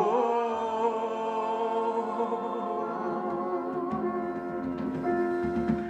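Gospel worship music: a long held chord with sustained singing, between lines of the chorus.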